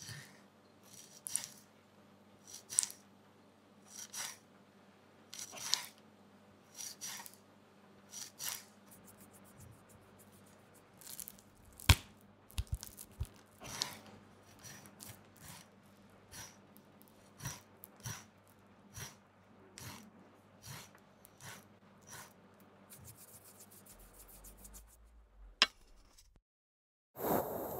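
A kitchen knife slicing into raw steak on a wooden cutting board, with a short cutting stroke about every one and a half seconds. Then comes a sharp knock on the board, followed by softer handling and rubbing of the meat. Near the end there is a click, a moment of silence, then a steady hiss starts.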